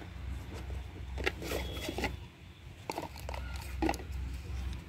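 Cardboard smartwatch packaging being handled: a few short clicks and rustles as the box's inner cardboard pieces are lifted out, over a low steady hum.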